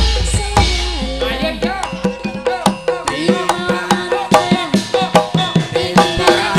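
Javanese gamelan music: rapid kendang hand-drum strokes, some bending in pitch, over the steady ringing of bronze metallophones. A deep gong sounds at the start.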